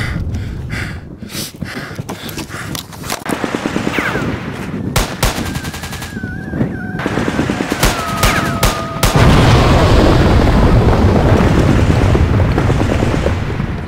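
Gunfire: scattered shots and fast bursts of rapid fire, with two brief whistling tones in the middle, then a loud, sustained rush of noise for the last few seconds.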